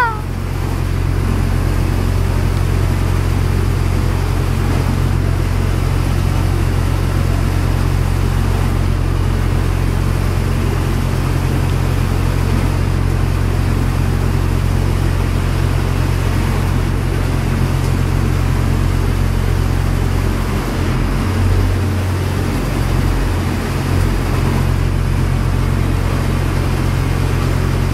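Shotcrete sprayer running and spraying concrete: a constant low machine drone under a steady hiss of air-blown concrete. The drone wavers briefly about two-thirds of the way through.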